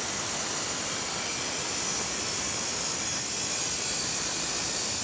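Porter-Cable circular saw with a diamond blade cutting into a concrete slab, running steadily through the cut. The cut is wet, with water sprayed onto the blade from a garden hose.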